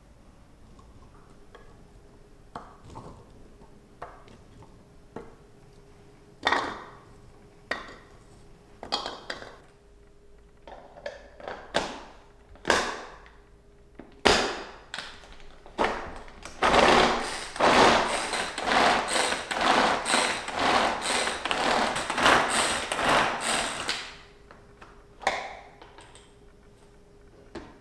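Peeled garlic cloves dropped and knocked one by one into the plastic bowl of a manual mini chopper. About seventeen seconds in, a fast, continuous rattle of its blades mincing the garlic runs for about seven seconds, and the lid clicks as it opens near the end.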